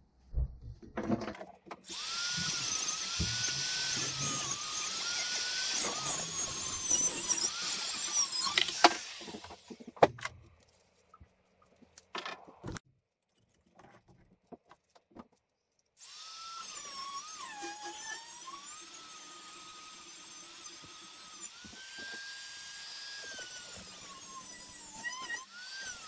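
Corded rotary tool with a cutting disc cutting through stainless steel cutlery held in a vise: a high motor whine that wavers and dips in pitch as the disc bites, over a hissing grind of metal. There are two spells of cutting, about seven and about ten seconds long, with a few clicks and knocks between them.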